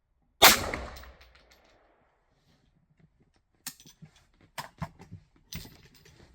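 A single rifle shot from a DPMS AR-15 in .223 with a 16-inch barrel, about half a second in, echoing for about a second. It is followed after a few seconds by several much quieter sharp clicks and knocks.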